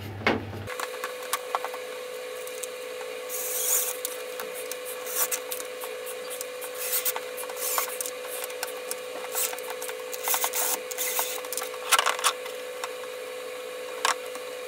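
Electric fan being reassembled by hand: scattered clicks, knocks and scraping of its plastic parts being handled and fitted back together, over a steady faint tone.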